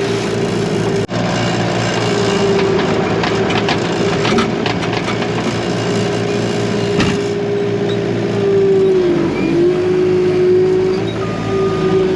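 A vehicle engine running steadily, its pitch sagging briefly about nine seconds in, with a reversing beeper starting to beep near the end.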